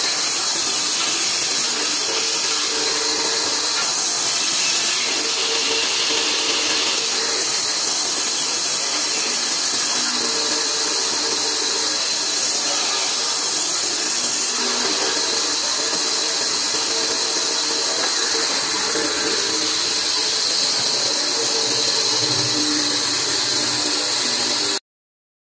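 Large bandsaw running and cutting planks: a steady hissing blade noise over a faint motor hum, which cuts off suddenly near the end.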